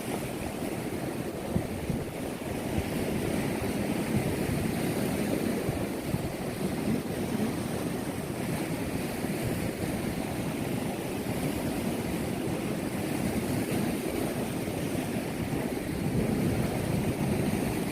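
Steady rushing of ocean surf mixed with wind buffeting the microphone, swelling a little louder near the end.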